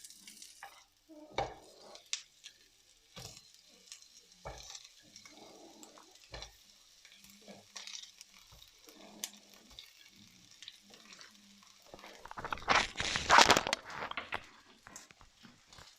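Chopped onions sizzling and frying in hot vegetable oil in a pan, with intermittent knocks and scrapes of stirring. About twelve seconds in, a much louder burst of sizzling and clatter lasts about two seconds.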